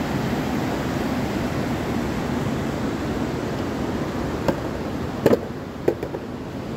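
Skateboard wheels rolling with a steady rumbling hiss, going from wooden boardwalk planks onto asphalt. The rumble eases a little after about four seconds, and a few sharp knocks follow.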